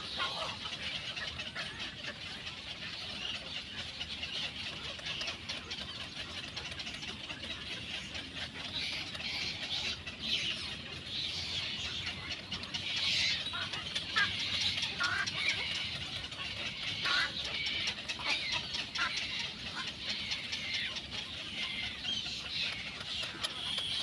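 Egret chicks in the nest giving rapid, high-pitched begging calls, a dense chatter that grows busier and louder from about the middle on.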